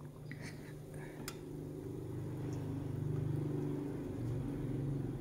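A low, steady engine-like hum that swells a little past the middle, with a few light clicks within the first second or so.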